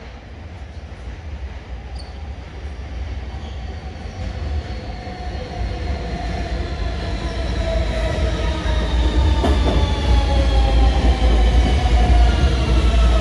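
R160 New York City subway train approaching through the tunnel and pulling into the station, its low rumble growing steadily louder. High whines slowly fall in pitch as it comes in, with a single clack about two-thirds of the way through.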